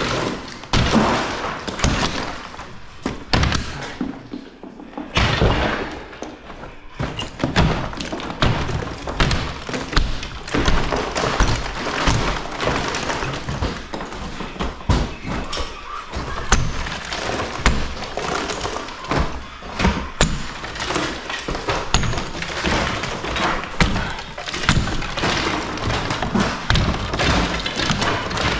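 A wall being demolished by hand: a steady run of irregular heavy thuds and cracks as blows land and material breaks apart.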